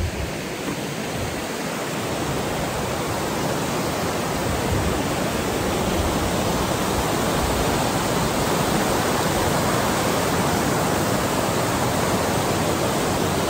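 Ogwen Falls, a waterfall, rushing close to the microphone: a steady, dense hiss of falling water, a bit loud, building slightly over the first couple of seconds and then even.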